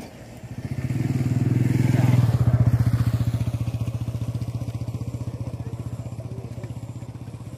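An engine chugging with a fast, even beat, growing loud over the first two seconds and then slowly fading as it passes by.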